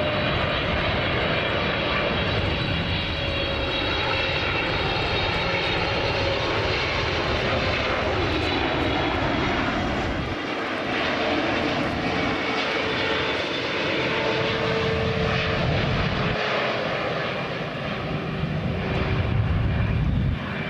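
Boeing 777 airliner on final approach with its landing gear down, its two jet engines making a steady loud roar. A whine in the roar slowly falls in pitch as the aircraft flies past.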